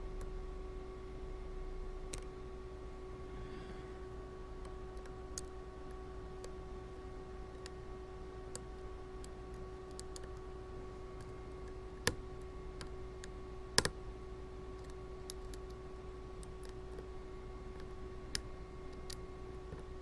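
Faint, scattered metallic clicks of a lock pick working the pins inside a brass pin-tumbler padlock while it is being single-pin picked, with a few sharper clicks about twelve, fourteen and eighteen seconds in. A steady hum runs underneath.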